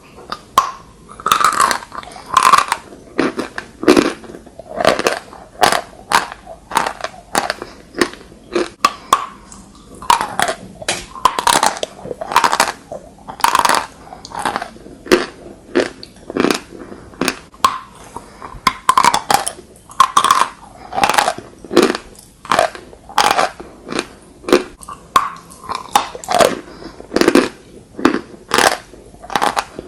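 Close-miked chalk being bitten and chewed, with repeated sharp crunches about one or two a second.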